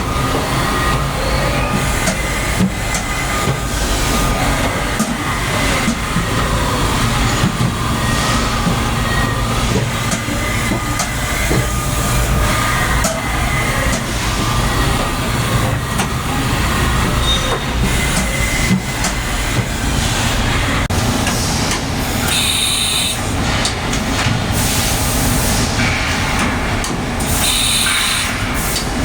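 Haas vertical machining center running, with a steady low rumble and a rattling clatter of metal on metal as its axes travel, typical of the Haas way covers that clank as they go. Two brief hissing bursts come near the end.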